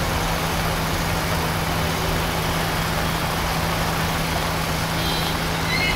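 Steady street noise: a constant low engine-like hum under an even hiss, with no breaks.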